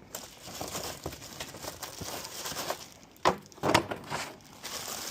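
Packaging crinkling and rustling while a replacement engine air filter is handled, with two louder, sharper crackles about three and a half seconds in.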